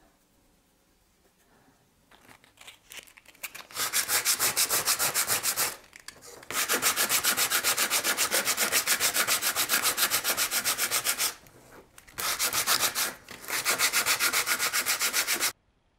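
Sandpaper rubbed by hand over a dry gesso-coated bauble blank, smoothing the gesso base. Fast back-and-forth strokes, about five a second, come in three runs with short pauses and stop suddenly near the end.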